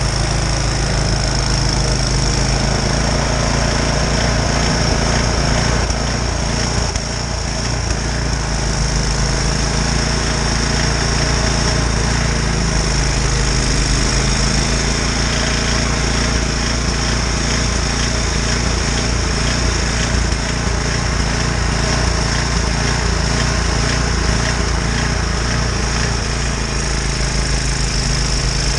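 Snowblower engine running steadily while clearing heavy wet snow, with a brief dip in level about seven seconds in.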